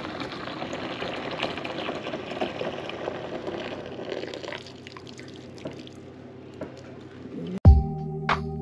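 Hot water poured from a glass kettle into a plastic spin-mop bucket, a steady splashing pour that thins to trickles and drips after about four or five seconds. Background music cuts in suddenly near the end.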